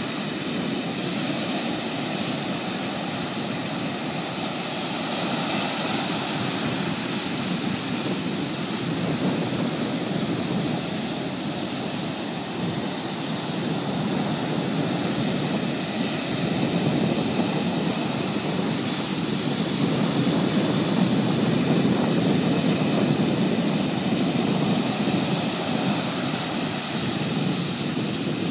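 Pacific Ocean surf: the continuous wash of breaking waves, swelling louder and easing back every few seconds, loudest about two-thirds of the way through.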